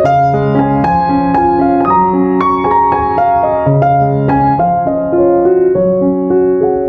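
Background piano music, a gentle melody of struck, held notes changing about every half second.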